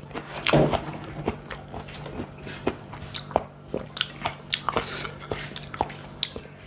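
A person chewing and eating tilapia, with irregular wet mouth smacks and small clicks, a few a second.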